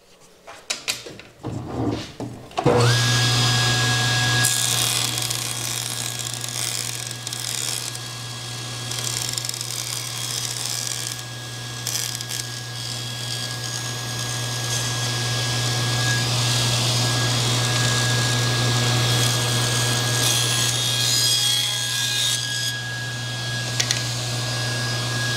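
SawStop table saw started up after a few knocks from handling, then running steadily with a low hum and a high whine while a thin wooden spline strip is cut, the cuts adding a hiss over the motor.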